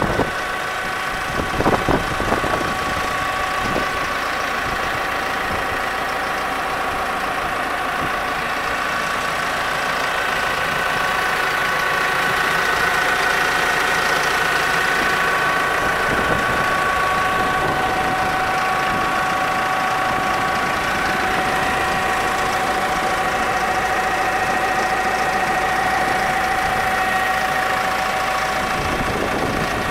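McCormick X4.50 tractor's diesel engine idling steadily, with a whine of several steady tones over the engine note. A few sharp knocks about two seconds in.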